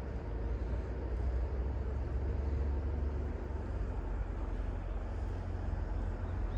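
A steady low rumble, with no distinct events in it.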